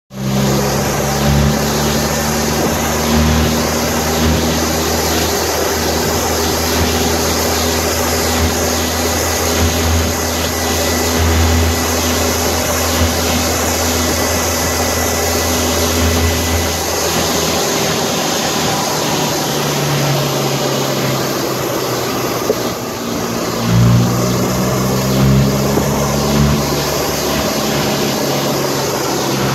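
A vehicle's engine running steadily at low speed, with wind and road noise; the engine note drops back for a few seconds past the middle and comes up again near the end.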